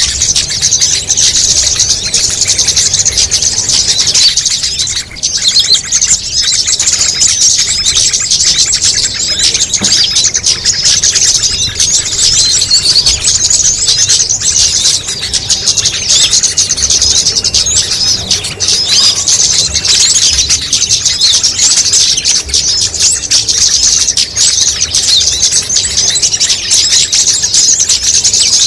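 A dense chorus of many small songbirds chirping and trilling at once in a fast, unbroken stream of high, thin notes. It is the layered call mix of a bird-lure (pikat) recording, made to draw small birds in.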